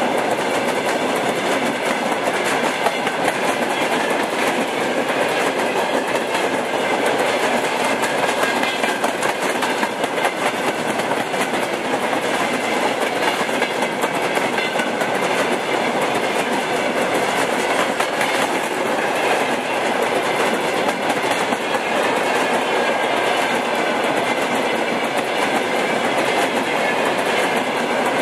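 Freight train's open-top gondola wagons rolling past at close range: a steady rumble and rattle of steel wheels on the rails, with a repeated clickety-clack.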